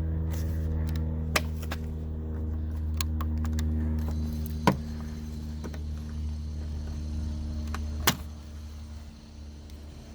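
Sharp plastic clicks and knocks as the outer door handle of a Mercedes W216 CL is worked free and its keyless-entry plug is handled. The loudest clicks come about halfway through and near the end, over a steady low hum.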